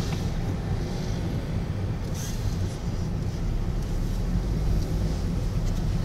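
Steady low rumble of a car's engine and tyres heard from inside the cabin while driving slowly through city traffic.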